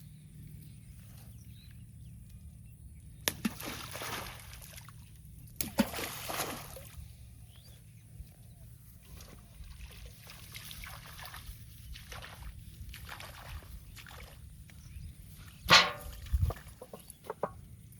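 Water splashing and sloshing in a canal: two sharp splashes about three and five and a half seconds in, smaller sloshes between, and the loudest splash near the end.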